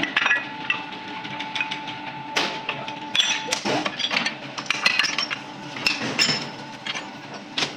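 Irregular knocks and metallic clinks of hand tools being worked, with a steady whine from a machine for the first three seconds or so.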